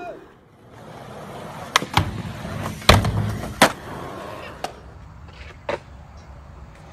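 Skateboard wheels rolling on concrete, with about half a dozen sharp clacks of the board striking the ground, the loudest about three seconds in.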